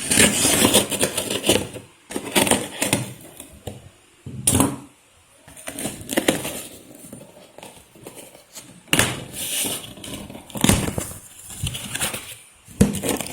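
Cardboard box being torn open and its packaging handled: irregular bursts of rustling, crinkling and scraping with short pauses between them.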